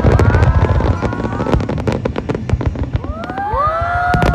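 Aerial fireworks shells bursting: low booms with dense, rapid crackling from the bursts. Near the end, a gliding tone rises and then falls slowly.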